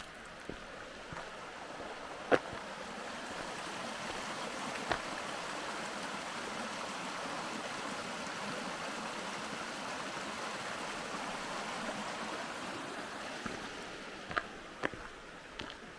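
Valley stream rushing steadily, swelling louder over the first few seconds and fading again near the end. A sharp click about two seconds in, with a few fainter taps later.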